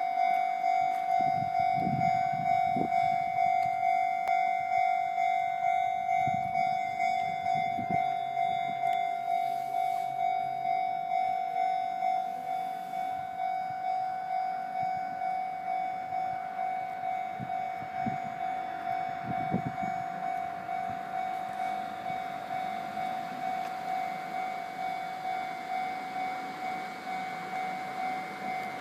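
Japanese railway level-crossing warning alarm ringing, an electronic bell tone repeating at a steady, even pulse that grows gradually quieter. A few low rumbles come and go beneath it.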